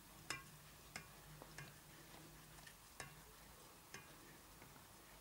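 Near silence with a handful of faint, irregularly spaced light ticks of a spoon touching a stainless steel bowl as melted soap base is stirred.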